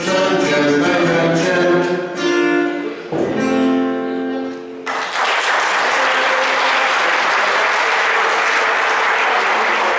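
Man singing to his acoustic guitar, the song ending on a long held note about three to five seconds in. Audience applause follows.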